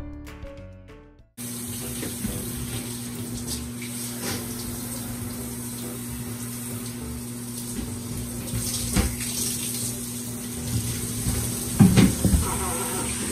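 Music cuts off about a second in, then a handheld shower head runs steadily, water spraying onto a bathroom floor with a low steady hum under it. A few knocks, and a cluster of louder bumps near the end.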